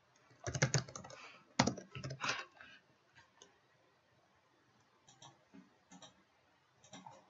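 Typing on a computer keyboard: two quick bursts of keystrokes in the first two and a half seconds, then a few scattered single clicks.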